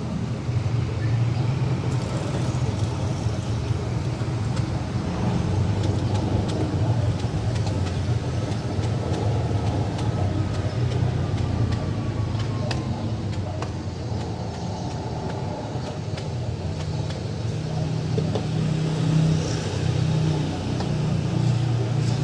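Steady low mechanical rumble, growing a little louder near the end.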